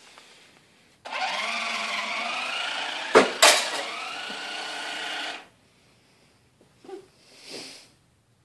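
Remote-control toy monster truck's small electric motor whirring for about four seconds, its pitch drifting as the speed changes. Two sharp knocks come in quick succession about halfway through.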